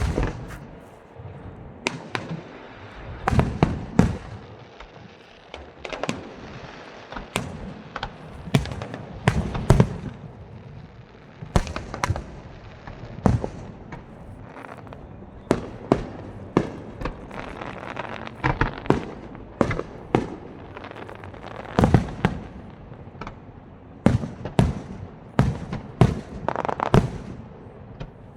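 Aerial fireworks bursting in a continuous display: many sharp bangs, irregular and often several a second in clusters, some with a crackling tail and echo.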